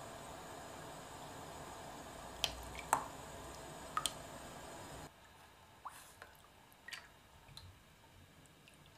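A few sharp drips as the last drops of a pour fall into a saucepan of liquid, then softer taps and squishes as a spatula starts stirring in the pan.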